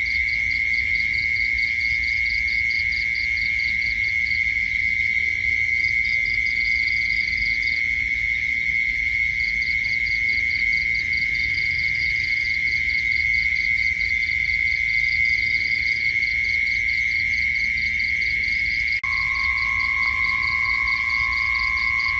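Night insects calling: a steady high-pitched drone with a rapid pulsing chirp above it. About nineteen seconds in, a second, lower steady tone joins.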